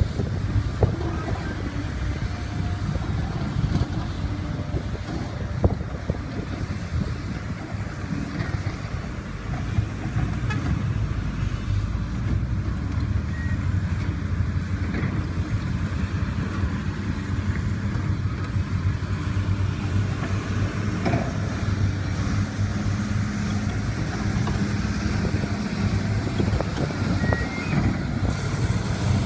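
Heavy diesel earthmoving machinery running: excavators and articulated dump trucks, a steady low engine rumble with occasional knocks. The engine note grows stronger in the last few seconds as a loaded hauler comes close.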